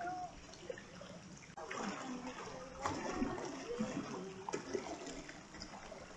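Waterfall water running and splashing steadily, with scattered small splashes and faint voices in the background. A sung note trails off just after the start.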